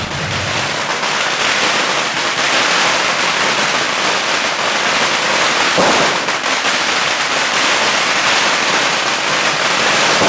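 A long string of Chinese firecrackers going off in a continuous, rapid crackle of bangs.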